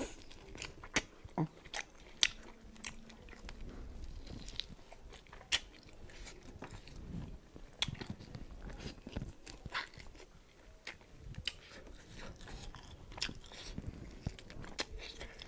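Close-miked eating: biting, tearing and chewing meat on the bone, with irregular sharp crunches and smacking clicks throughout.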